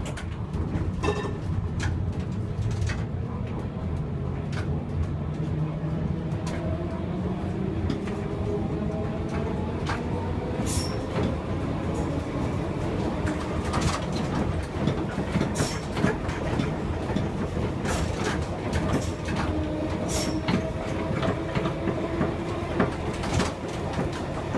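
A 1959 Gotha T57 tram running along the track, heard from the driver's cab. The traction motors whine and rise in pitch as the tram gathers speed, over a steady rumble. Sharp clicks and clatter from the wheels come over rail joints throughout.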